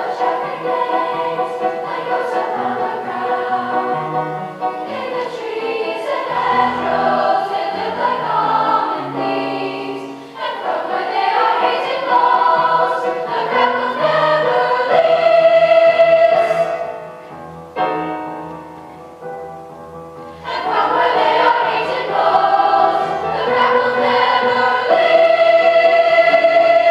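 Middle school choir singing. The music drops to a soft passage a little past the middle, then swells back and settles into a long held chord near the end.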